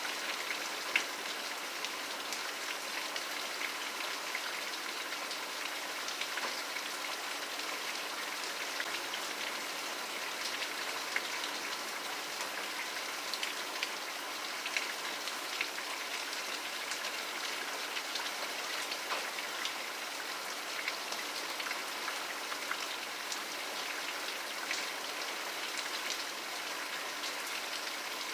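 Steady rain falling, an even hiss with scattered individual drops ticking and pattering on a surface, a few of them sharper and louder.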